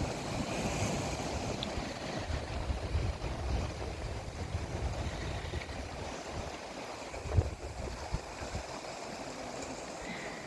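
Seaside outdoor ambience by the estuary: a steady wash of water noise with wind rumbling on the microphone, and one short thump about seven seconds in.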